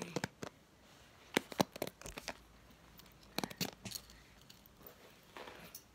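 Hairbrush bristles scraping through long hair in a series of short, scratchy strokes at an uneven pace.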